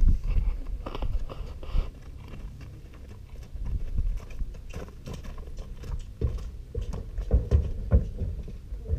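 A pinto pony's hooves crunching and clopping on gravel at a walk. Near the end come a few louder thuds as it steps onto the horse trailer's ramp.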